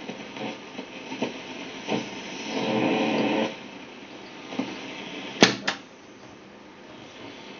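Philips BDK394A radio being tuned across the band: hiss and crackle between stations, a brief snatch of a station from about two and a half to three and a half seconds in, and two sharp clicks about five and a half seconds in.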